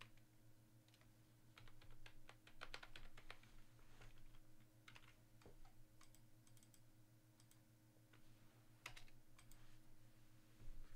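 Faint typing on a computer keyboard: irregular clusters of quiet key clicks over a low steady hum.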